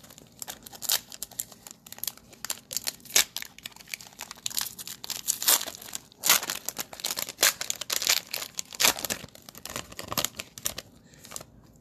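Plastic wrapper of a Mosaic basketball-card cello pack being torn open and crinkled by hand: a dense, irregular crackling.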